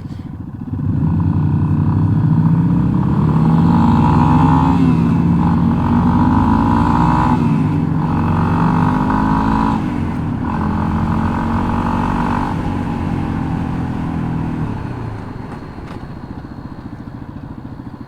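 Yamaha XT250's single-cylinder engine pulls away about a second in and accelerates through the gears, its pitch rising and dropping back with each shift, then settles to a lower, steadier run near the end. It has a rough sound, which the rider puts down to rattling.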